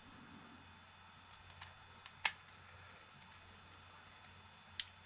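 A few light, sharp plastic clicks and taps from an Xbox Series controller being handled, spaced irregularly, the loudest a little over two seconds in. A faint steady low hum runs underneath.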